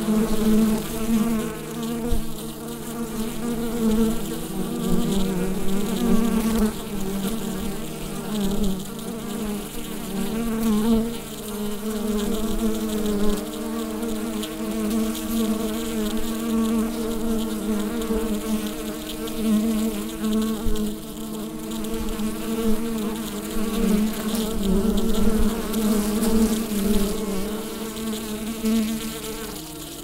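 A honeybee hive buzzing: a dense, steady drone of many bees' wingbeats, with overlapping hums that waver slightly in pitch.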